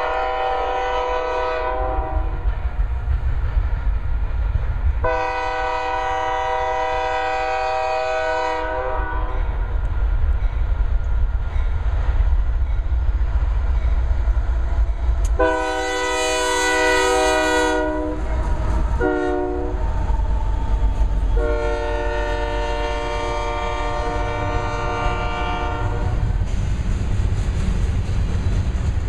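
Union Pacific GE AC4400CW diesel locomotive's air horn sounding long blasts, then a short one and a final long one: the long-long-short-long grade-crossing signal. Under the horn is the steady low rumble of the passing diesel locomotives and the wheels of the double-stack container train.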